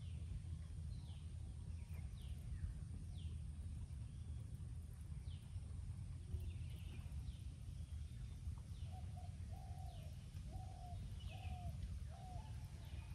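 Birds calling over a steady low rumble: a short, high, downward-sliding note repeated about once a second, and a run of five low notes about two-thirds of the way through.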